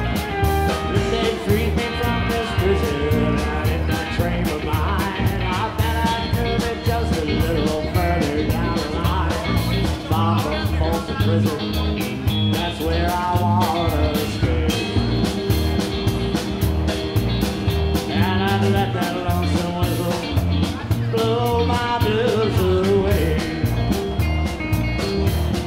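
Live band playing amplified rock music through PA speakers, guitar over drums with a steady beat.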